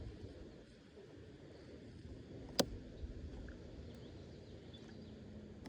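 Quiet outdoor ambience with a low rumble, broken by one sharp click about two and a half seconds in.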